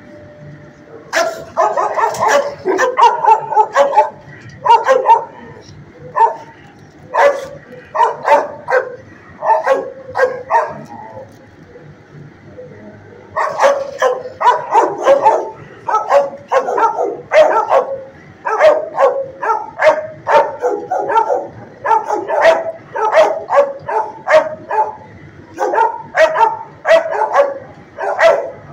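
Dog barking over and over in a shelter kennel, in quick runs of short barks, with a pause of a couple of seconds about eleven seconds in.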